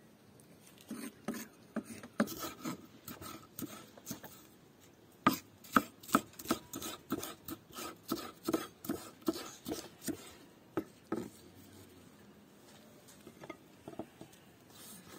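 A kitchen knife chopping red bell pepper on a thick wooden log-slice board: a run of sharp knocks, uneven at first, then steady at about three a second. The knocks stop about eleven seconds in, and a few light taps follow.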